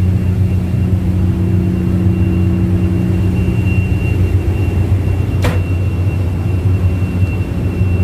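Steady low drone of a ship's engine and propeller heard on the stern deck, with a faint steady high whine over it and a single sharp click about five and a half seconds in.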